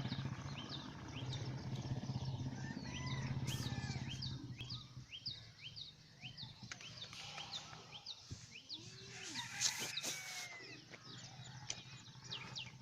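Small birds chirping steadily, short falling chirps several times a second, over a low steady hum that fades about five seconds in.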